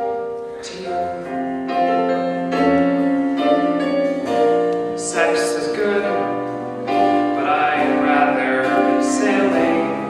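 A man singing a musical theatre ballad with piano accompaniment, holding long sustained notes.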